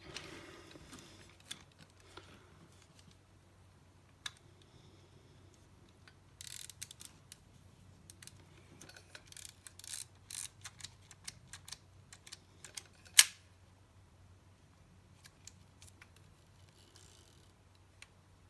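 Small mechanical clicks and rattles from a Nikon FM2 35 mm camera body being worked by hand, with a burst of quick clicks midway and one loud sharp click a little after. The shutter is cocked but will not release, which the repairer suspects is a bad magnet.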